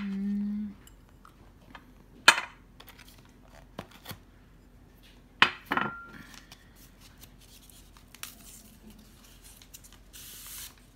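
Tableware clinking and knocking on a dinner table: a few separate sharp clinks, the loudest about two seconds in and two close together in the middle, one leaving a brief ringing tone.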